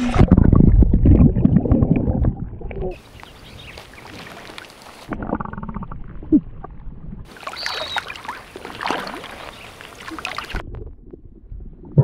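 Water sloshing and splashing against a camera at the surface of a shallow swamp pool, loudest and deepest in the first few seconds. After that come quieter, muffled underwater gurgling and bubbling sounds heard through the submerged camera.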